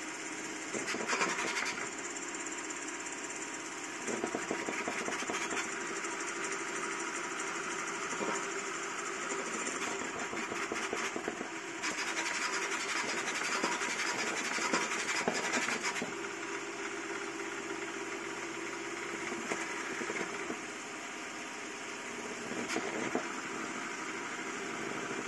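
Small custom CoreXY 3D printer printing PLA at very high speed, up to 1000 mm/s with 40,000 mm/s² acceleration: its stepper motors buzz and whine as the toolhead darts and changes direction, the sound shifting in texture every few seconds over a steady high tone.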